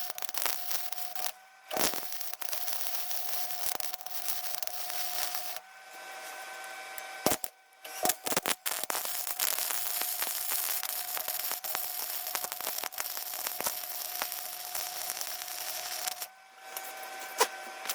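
Welding arc crackling and sputtering in several runs that start and stop abruptly with brief pauses, the longest run about eight seconds: welding on the light mounts.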